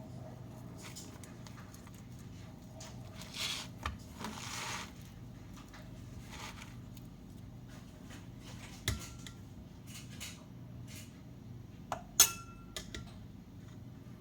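Kitchen utensils and dishes being handled: a scraping rustle about three seconds in, then a few sharp clinks of metal or glass, the loudest about twelve seconds in with a brief ring. A steady low hum runs underneath.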